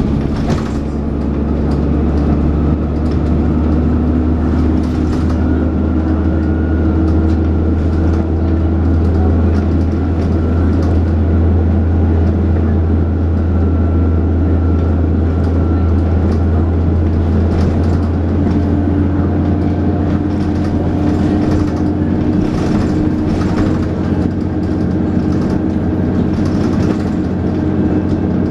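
Dennis Trident 2 double-decker bus under way, heard from on board: a steady, loud low engine drone with a thin steady whine above it, the pitch of its tones shifting a little about two-thirds of the way through. Short knocks and rattles from the bus body come in the later part.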